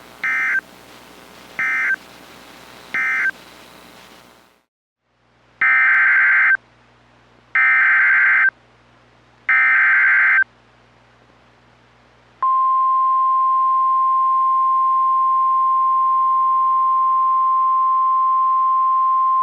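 Emergency alert SAME data bursts: three short buzzing digital bursts (the end-of-message code), a short pause, then three longer bursts (the header of the next alert). About twelve seconds in, a loud steady single-pitch alarm tone starts and holds: the NOAA Weather Radio 1050 Hz warning alarm that precedes a warning message.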